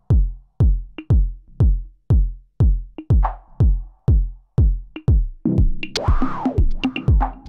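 Electronic drum machine pattern, likely from an Elektron Analog Rytm: a steady four-on-the-floor kick about two beats a second, with a short higher hit every fourth beat. A little past halfway, a noisy swell whose pitch rises and falls joins the beat for about a second and a half.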